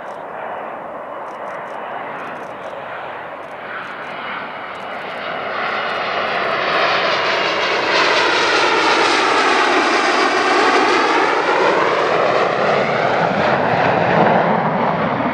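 Panavia Tornado jet with twin RB199 turbofans growing louder as it approaches, then passing close with its noise sweeping in a phasing, whooshing pitch.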